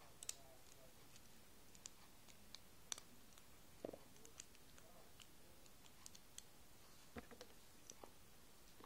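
Near silence with faint, scattered small clicks and taps, about ten in all, from a hook and rubber loom bands being worked over two pens.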